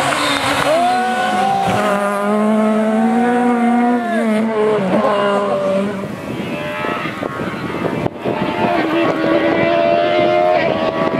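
Peugeot 306 Maxi rally car's two-litre four-cylinder engine at high revs, holding a high note, then backing off about five seconds in. It picks up again and pulls hard from about eight seconds.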